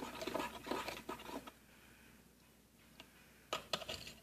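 A spoon stirring borax into hot water in a small container, scraping and clicking against its sides for about a second and a half, then a few sharp clicks near the end.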